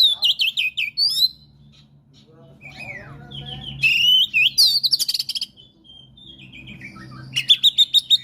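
Oriental magpie-robin (kacer) singing excitedly in three bursts of rapid, bending whistles and chatter, with short pauses between them; a low steady hum runs underneath.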